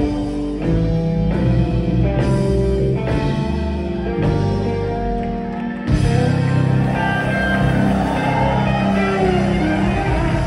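Live rock band playing, with electric guitars, bass, drum kit, organ and electric keyboards. Held chords change about every second, then the full band comes in louder about six seconds in.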